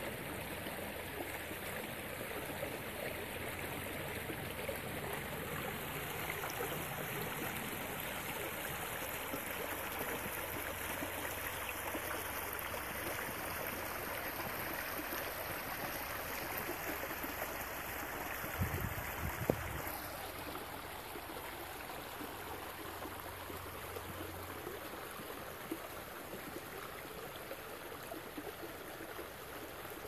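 Small stream rushing over a log and stones in a low cascade, a steady rush of water. There is a brief low thump a little past halfway, and after it the rush becomes slightly quieter.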